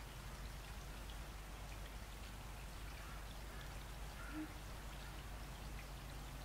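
Faint trackside ambience before a train moves: a steady hiss over a constant low hum, with scattered faint ticks and a short faint chirp about four seconds in. No horn or railcar is heard yet.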